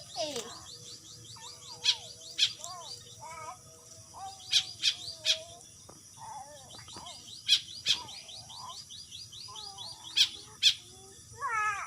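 Birds calling: short sharp high chirps every second or so, with lower warbling, sliding whistled calls in between and a faint rapid high trill behind.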